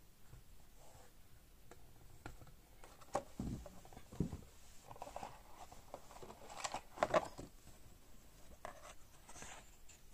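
Cardboard gift box being opened and its paper leaflet handled: scattered rustles, scrapes and light knocks, the loudest a few seconds in and again around seven seconds.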